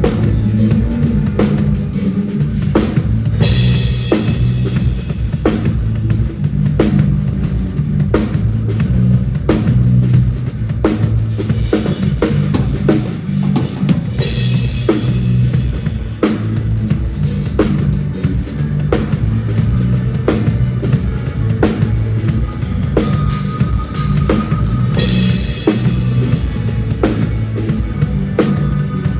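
Band music led by a drum kit: a steady kick-and-snare beat over bass guitar, with a crash cymbal washing out three times, about every eleven seconds.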